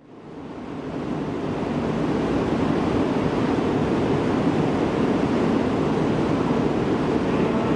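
Tohoku Shinkansen train running past the platform: a steady rushing rumble that swells over about two seconds and then holds.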